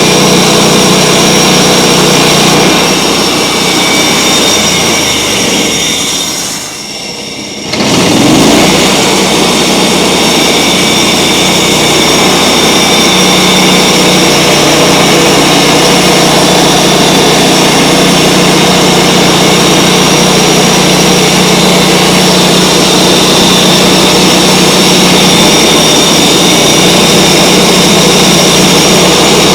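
Band sawmill's gasoline engine running steadily at speed. It drops away about six seconds in and cuts straight back in near eight seconds.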